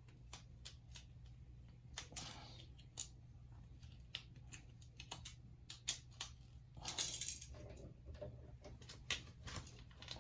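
Scattered small clicks, taps and brief rustles of hands working house wires and a single pole wall light switch, over a steady low hum.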